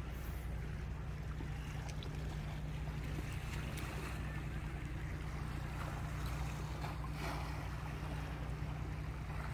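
Wind and gentle sea wash against the breakwater's concrete tetrapods over a steady low hum, with a few faint clicks.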